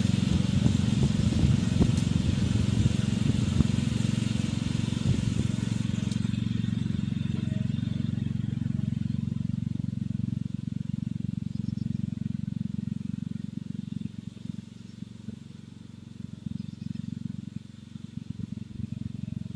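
Murray 12.5 hp lawn tractor engine running steadily while the tractor, towing a garden cart, pulls away. It grows fainter over the first two-thirds and then stays low.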